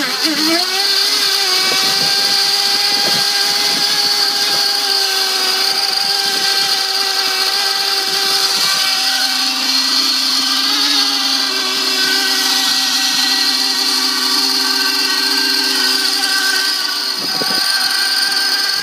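Small glow-fuel engine of a radio-controlled model racing boat running after being started, a high-pitched buzz that rises just after the start and then holds steady. A second, lower engine note is heard alongside it for several seconds in the middle.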